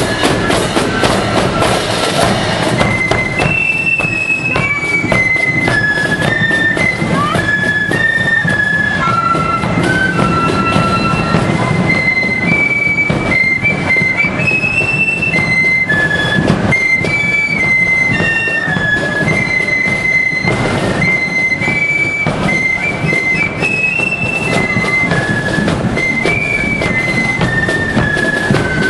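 Marching flute band playing: flutes carry a stepping melody in unison over rapid side-drum beating and a bass drum.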